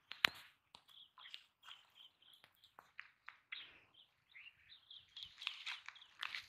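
Small birds chirping over and over in short, high calls, with a sharp click just after the start and scattered short knocks and rustles.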